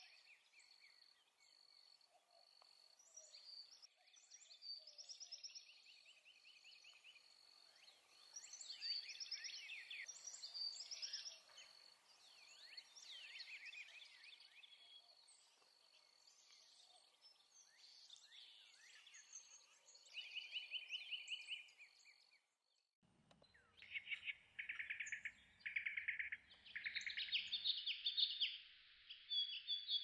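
Several songbirds singing and calling over one another: quick chirps, buzzy trills and a steady pulsing high note. About three-quarters of the way through the sound cuts, and louder repeated song phrases follow over a low rumble.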